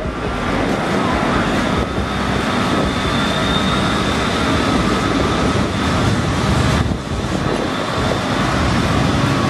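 Electric tram rolling past close by along a station platform: a steady rumble of steel wheels on the rails, with a faint high whine about a third of the way in.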